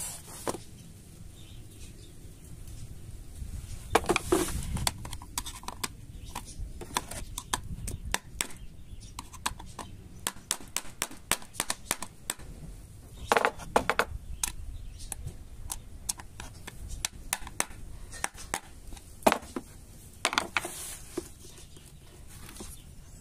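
Irregular metal clicks, scrapes and knocks of a screwdriver working at a lock that is stuck fast, with a few louder knocks.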